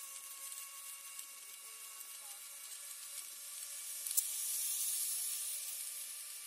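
Steady hiss of wind and road noise from riding in a moving vehicle, with faint steady whining tones underneath. The hiss swells about four seconds in, starting with a sharp click, then eases off near the end.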